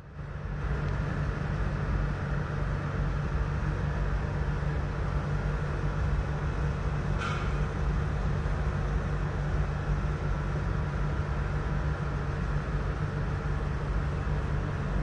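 Steady low mechanical hum and hiss, like a motor or traffic drone, with one brief small click about seven seconds in.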